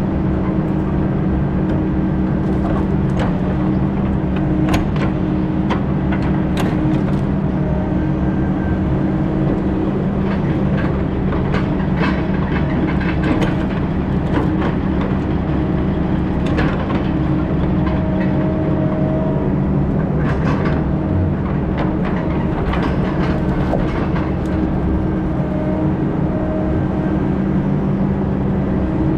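Engine of heavy logging equipment running steadily under load, with scattered short metallic clanks and knocks.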